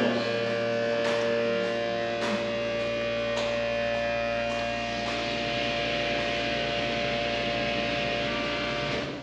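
Steady electrical hum from elevator machinery, several level tones at once, with a few faint clicks. It cuts off suddenly near the end.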